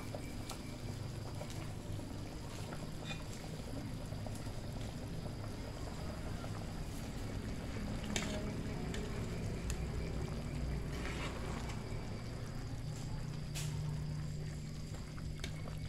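Metal ladle stirring and lifting soup in an aluminium pot on a portable gas stove: liquid sloshing, with a few sharp clinks of metal on metal over a steady low hum.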